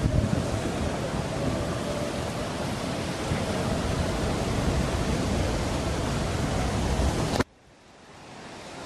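Wind buffeting the microphone: a dense rushing noise, heaviest in the low end, that cuts off abruptly near the end to a much quieter hiss that slowly grows.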